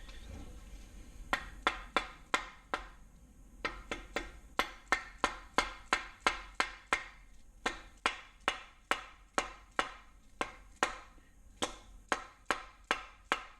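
Steady run of sharp mallet taps, about three a second, starting a little over a second in, as a main bearing cap is tapped down over the ARP main studs to seat it in the LS engine block.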